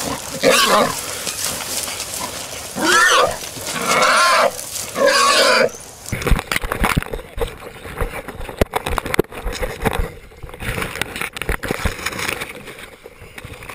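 A wild hog calling, four loud calls of about half a second each over the first six seconds, bending in pitch. After that come scattered knocks and rustling against the microphone.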